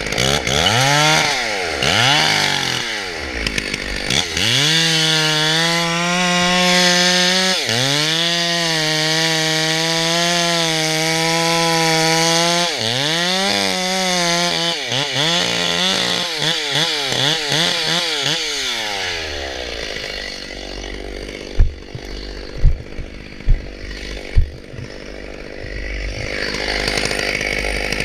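Chainsaw revving and running at full throttle, held high for several seconds at a time as in cutting, with the engine pitch rising and falling between cuts. It then drops to a low idle, during which four sharp loud thumps sound, and revs up again near the end.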